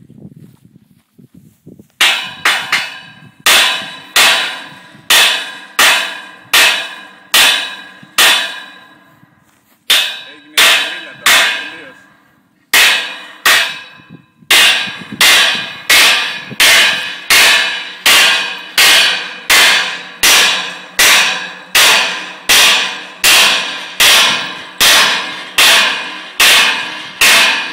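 Hammer blows on a steel lattice section of a Televes 450 mast, struck at a steady pace of about two a second, each with a bright metallic ring. The blows stop twice briefly in the middle, then run on without a break.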